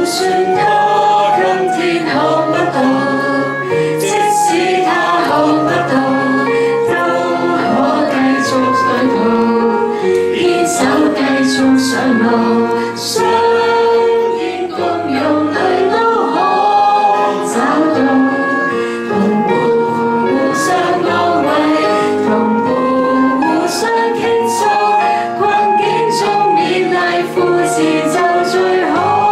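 A group of people singing a song together live, led by a woman's voice on a microphone, over instrumental accompaniment.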